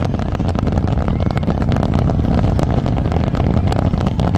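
Fireworks display: a dense run of rapid crackles and bangs over a continuous low rumble.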